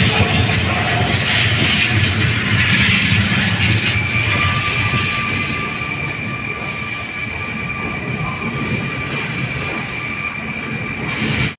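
Electric multiple-unit passenger train moving along a station platform, a continuous rumble of wheels on rails. About four seconds in, the sound changes to a somewhat quieter train approach with a steady high-pitched whine held over the rumble.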